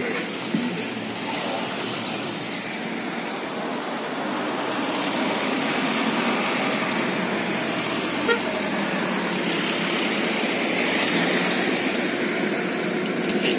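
Road traffic on a hillside road: a steady rush of passing vehicles' engines and tyres that swells slightly and then cuts off abruptly at the end.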